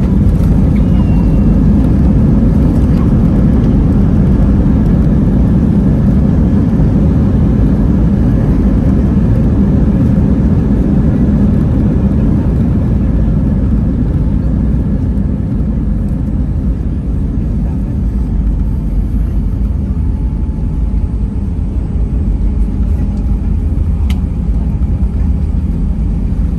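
Steady low rumble of an Airbus A320 cabin on the ground after landing, engine and airframe noise heard from a passenger seat, easing a little about halfway through.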